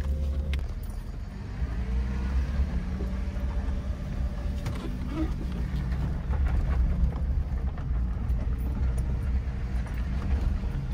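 Suzuki Jimny driving slowly along a rough dirt track, heard from inside the cabin: a steady low engine and road rumble with a few light clicks.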